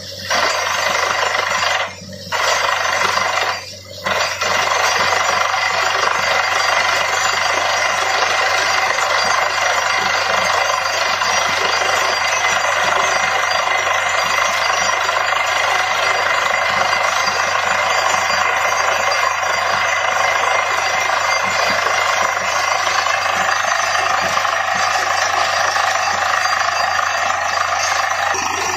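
Truck-mounted borewell drilling rig drilling into the ground, a steady loud rattling noise over the low hum of its engine. The noise cuts out briefly twice in the first four seconds.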